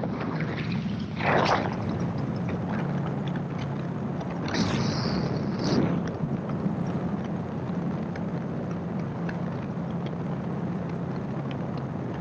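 Gyroplane engine and propeller droning steadily in flight, heard from on board with a rush of wind noise over it. Two louder rushes of noise come through, about a second in and around five seconds in.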